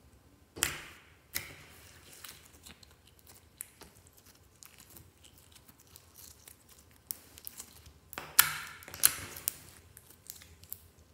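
Clear slime being pressed, folded and stretched by fingers, giving irregular sticky clicks and crackling pops as it pulls apart, with louder bursts of crackling about half a second in and again near the end.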